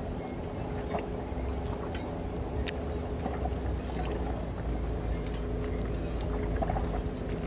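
Steady low engine rumble with an even hum, with a few light clicks over it.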